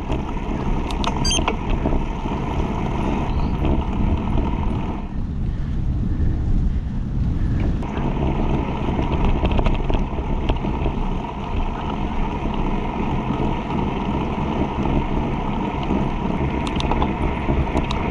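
Steady riding noise of a road bike climbing, picked up by an action camera mounted on the front of the bike: wind on the microphone and tyre rumble on the road. The hiss thins out about five seconds in and comes back near eight seconds.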